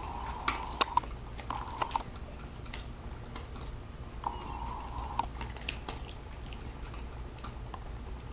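A dog chewing a Pork Chomps pork-skin chew: irregular crunching clicks, the loudest about half a second to a second in.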